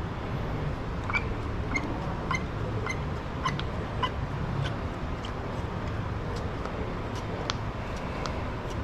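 Primer bulb on a Husqvarna 445 chainsaw being pressed over and over, a short squeaky click about every half second, then less regularly: priming, drawing fuel up into the carburettor, which is pumping up well.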